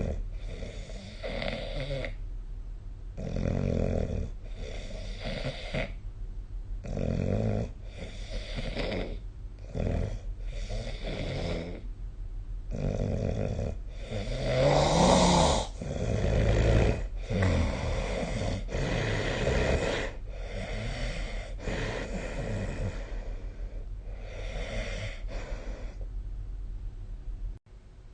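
A person snoring, in a run of separate rasping breaths about one to two seconds apart, loudest about halfway through. The sound cuts off suddenly near the end.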